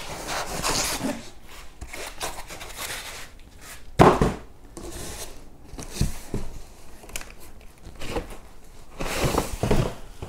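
Unboxing handling noise: packaging and the box rubbed and scraped, with several knocks, the loudest about four seconds in.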